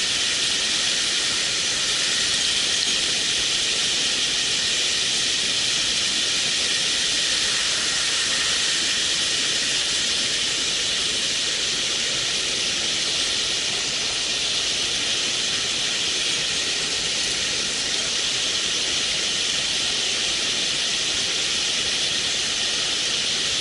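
Mountain stream water rushing: a steady, even hiss of flowing water that does not change.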